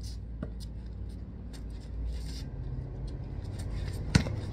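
A basketball bouncing on a concrete driveway: a light bounce about half a second in and a loud one near the end, over a low steady rumble.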